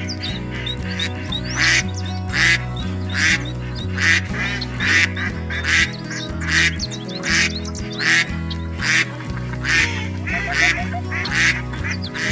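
Domestic duck quacking over and over, one loud call about every second, with background music playing underneath.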